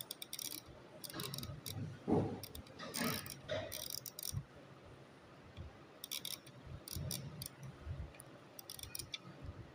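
The rotary dial of a 24-hour mechanical time switch being turned clockwise by hand: irregular light clicks and ticks from the dial and its gearing, with a little finger rustle.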